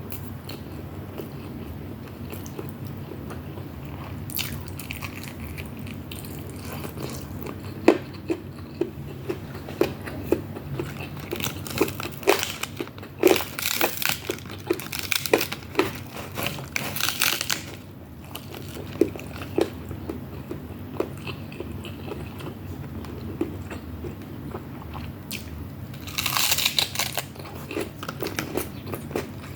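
A person chewing and biting food close to the microphone: many short wet mouth clicks, with spells of crunching about halfway through and again near the end.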